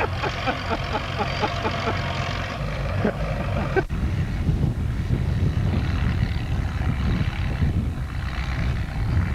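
Antique farm tractor engines running with a steady low rumble. The sound breaks off abruptly about four seconds in and the rumble carries on.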